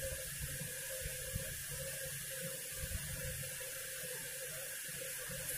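Homemade USB fan, a small DC motor spinning a plastic propeller at high speed, powered from a phone charger: a steady whirring hiss with a faint steady hum.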